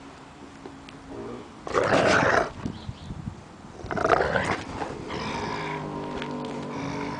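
Rottweiler growling in play with a large ball in her mouth: two loud, rough growl bursts about two and four seconds in, then a long, steady growl from about five seconds in.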